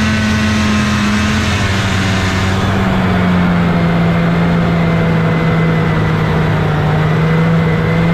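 1979 Scorpion Whip TKX 440 snowmobile's Cuyuna 440 two-stroke twin running steadily under way, its note dropping slightly lower about two seconds in and then holding.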